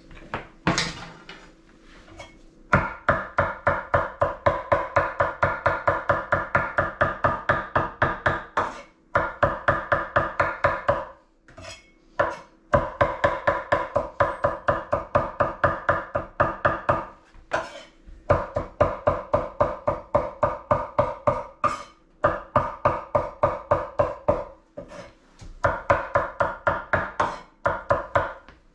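Rapid, evenly spaced chopping strikes with a ringing metallic edge, in runs of several seconds with short pauses: raw steak being chopped up with a metal blade for cheesesteak.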